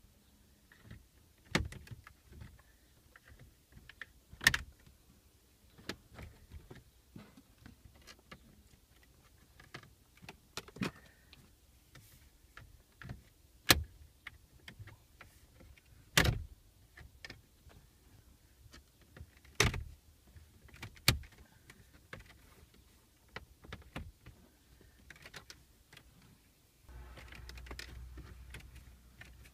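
Plastic retaining clips of a Kia Ceed's centre-console trim panel snapping loose as it is prised off with a plastic trim removal tool. There are about half a dozen sharp snaps, with lighter tapping and scraping of plastic between them and a longer rustling near the end.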